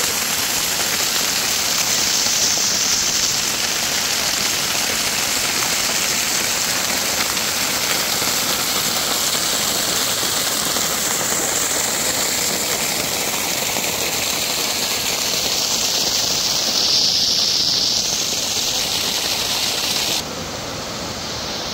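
Water gushing from an outlet atop a concrete wall and splashing down a concrete channel: a steady, loud rushing. It drops in level about twenty seconds in.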